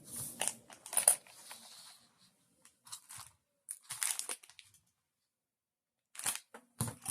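Rustling and crinkling handling noises as small things on a workbench are moved and searched through, in several short scattered bursts with a quiet pause a little past the middle.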